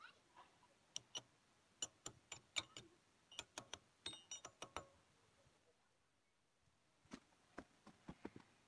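Light metallic clicks and clinks of a tractor front wheel bearing being fitted by hand onto its steel stub axle. There is a quick run of about a dozen in the first five seconds, then a pause, then a few more near the end.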